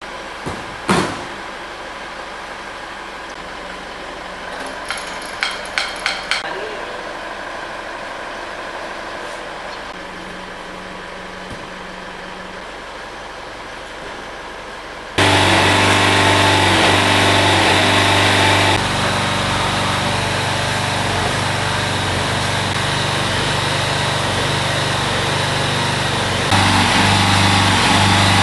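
A few sharp clicks over a quiet background, then about halfway through a small petrol engine, the hydraulic power unit for a rescue cutter-spreader, comes in suddenly and runs steadily. Its level steps twice as the hydraulic tool is worked.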